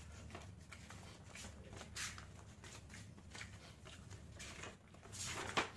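Faint rustling and handling of paper sheets, with a louder rustle about two seconds in and again near the end.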